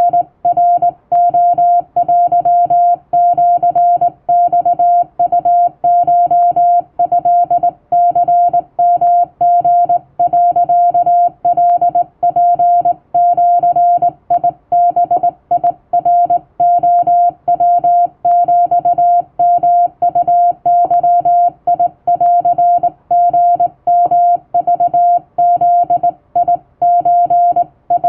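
Hand-keyed Japanese Wabun Morse code (CW): one steady mid-pitched beep switched on and off in a continuous run of short dots and longer dashes, with brief gaps between characters.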